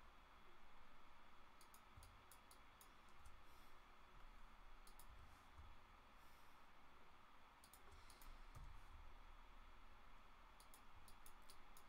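Faint clicking from a computer mouse and keyboard, in short runs of quick clicks a few seconds apart, over near-silent room tone.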